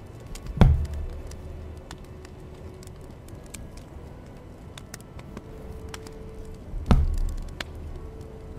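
Hand embroidery: a needle worked through fabric stretched taut in a wooden hoop, with two dull thumps, one about a second in and one near the end, and faint scattered ticks between them.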